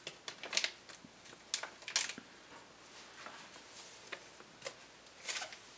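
Faint rustles and light ticks of a paper packet of no-rinse cleanser powder being shaken out and handled, a handful of short sounds spread a second or so apart.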